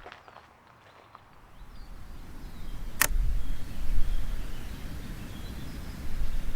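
Outdoor ambience with faint bird chirps, a single sharp click about three seconds in, then a low rumbling noise.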